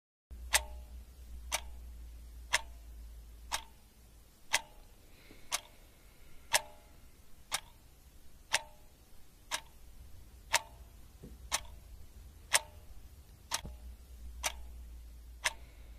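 Wall clock ticking: a single sharp tick each second, over a faint low hum.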